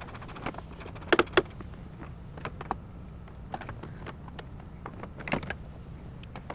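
Irregular clicks and knocks of hand tools and parts being handled while a car's headlight is unbolted, with a few sharp loud knocks about a second in and again around five seconds.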